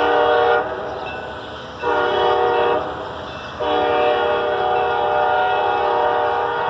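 Air horn of CSX locomotive 4418 sounding several tones at once in a series of blasts. A blast cuts off about half a second in, a short blast follows about two seconds in, and a long blast begins about three and a half seconds in and is still sounding at the end.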